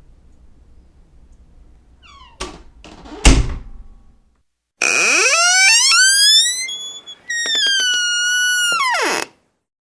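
A door clicks and then thumps loudly about three seconds in. Then door hinges creak twice, each a long, high squeal of about two seconds that glides up and down in pitch and stops abruptly.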